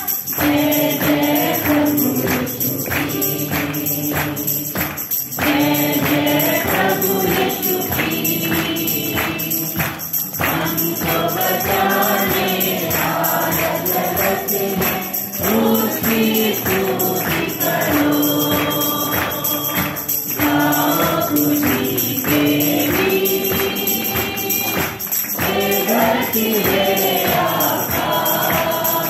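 Christian worship song sung by a group of voices, led by a woman on a microphone, with electronic keyboard accompaniment and a steady percussion beat.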